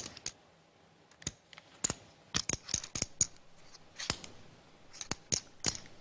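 Poker chips clicking together as they are handled at the table: a string of sharp, irregular clicks in small clusters.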